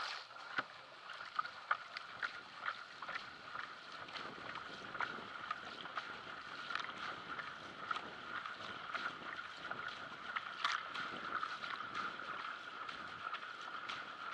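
Sprint racing kayak paddled hard: quick, regular paddle-blade catches and splashes over water rushing along the hull, heard from a camera on the bow deck, with a steady high hum beneath. These are the full-power strokes of a race start.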